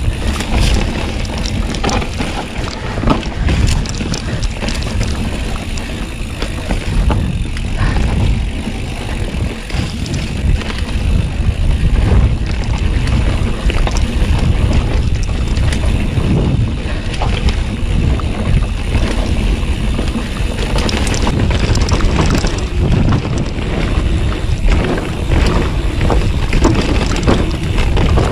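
Mountain bike descending a dirt singletrack at speed: wind buffeting the camera microphone and tyres rumbling over the dirt. The bike rattles and clatters over roots and bumps.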